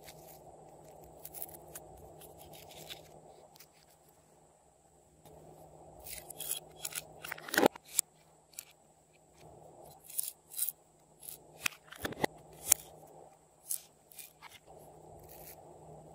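Small plastic containers handled and tapped while sprinkles and polymer clay slices pour into a glass bowl of glue. There is a run of scattered sharp clicks and rattles through the middle, with a couple of louder clicks.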